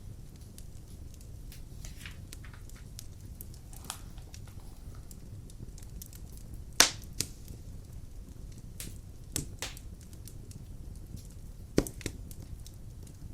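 Wood fire burning in a fireplace: a steady low rumble of flames with scattered crackles and a few sharp pops, the loudest a little past halfway through and again near the end.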